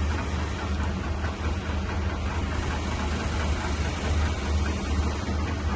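An engine idling, a steady low drone that does not change.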